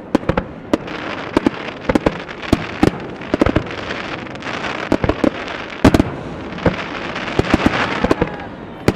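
Starmine fireworks barrage: shells launching and bursting in rapid fire, several sharp bangs a second over a steady hiss, with the loudest bang about six seconds in.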